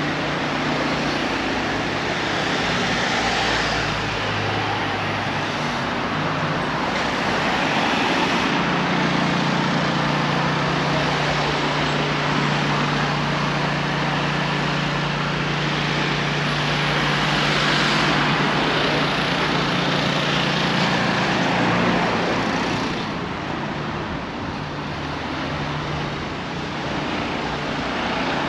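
Road traffic on a village street: cars passing, their tyre and engine noise swelling and fading in turn, with a steady low hum through the middle stretch.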